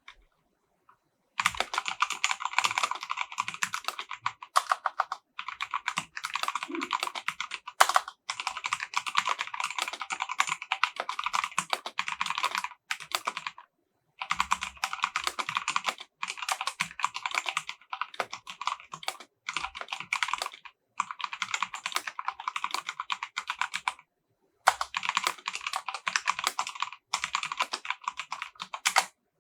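Fast typing on an EVGA Z15 mechanical keyboard with silver switches: a rapid clatter of keystrokes in runs of a few seconds, broken by short pauses, starting about a second and a half in.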